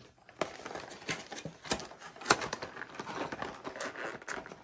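Clear plastic blister packaging being opened and handled: irregular crackles and clicks of stiff plastic.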